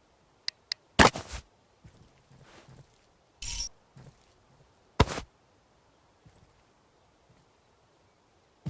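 Two light clicks, then a few loud, separate knocks and clanks a couple of seconds apart, with a short scraping burst between them.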